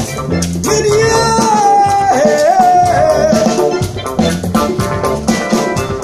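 Live afrobeat/highlife band playing: drums and bass keep a beat while a melody line, held and bent in pitch, sounds over them from about a second in until about four seconds in.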